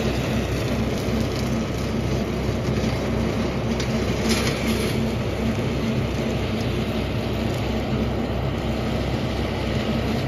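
Kubota tractor's diesel engine running steadily as it pulls a rotary cutter clipping a field, a constant low drone.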